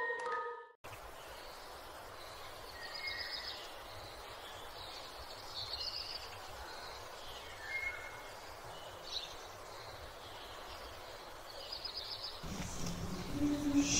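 Small birds chirp now and then over a steady outdoor background hiss. Near the end, louder scraping and thudding begin as a spade digs into turf and soil.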